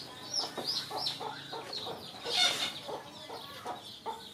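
Chickens clucking in a run of short calls, several a second, with high chirps over them and a louder rasping call about two and a half seconds in.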